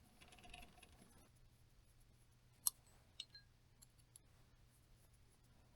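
Near silence broken by a brief soft rustle and a few faint, sharp clicks of small parts being handled, the loudest about two and a half seconds in.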